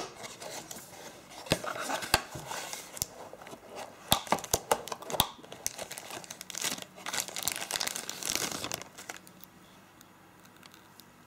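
A phone's retail packaging being opened and handled: plastic and cardboard crinkling and rustling, with a run of sharp clicks and taps, dying away about nine seconds in.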